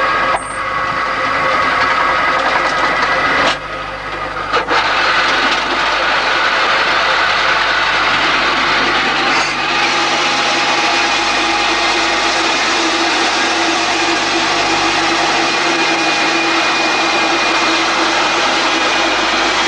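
Rock drill running steadily as its drill steel bores into the rock face, a loud, even machine noise with a brief dip about three and a half seconds in.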